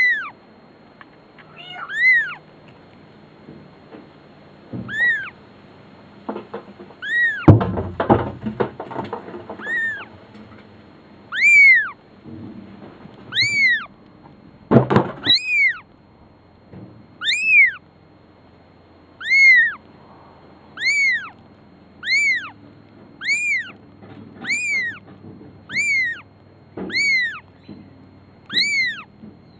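Young kitten meowing over and over, high thin cries that each rise and fall in pitch, coming faster, about one a second, in the second half. A few loud thumps sound about a third of the way in and again near the middle.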